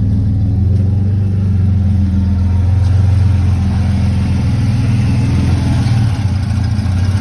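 Dodge Charger engine idling with a steady low drone. This is the rough idle the owner is trying to diagnose.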